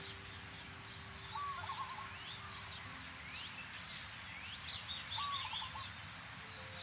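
Birds calling and chirping over a steady background hiss: a lower warbling call about a second and a half in and again about five seconds in, with quick rising chirps between.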